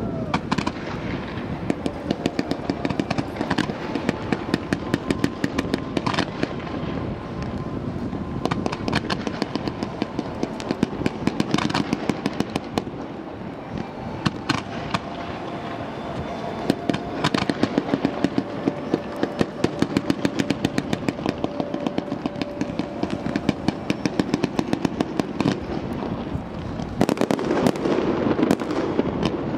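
Fireworks display from barge-fired fountains and aerial shells: a dense, continuous crackling and popping with many sharp bangs, growing denser and louder near the end.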